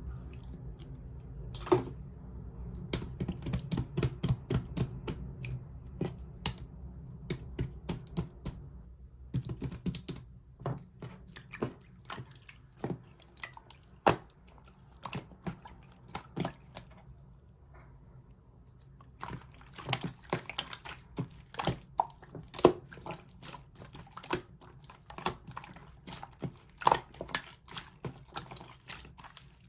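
Black shaving-foam slime being squished and poked by hand, giving a stream of sharp, irregular little clicks and pops. The clicks thin out around the middle and grow dense again in the last third.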